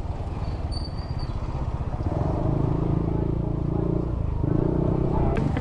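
Small motor scooter engine running on the move, with rumbling wind and road noise on the microphone. A steady engine hum comes up about two seconds in and changes pitch a little past four seconds in.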